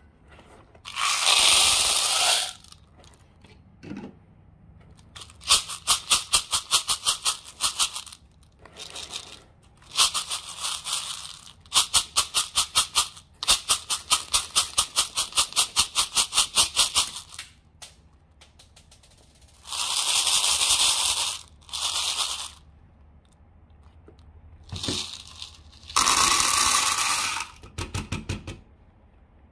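Orbeez water beads poured and rattled in a plastic funnel and jar, in separate bursts with quiet gaps, some of them quick rhythmic runs of about four clicks a second.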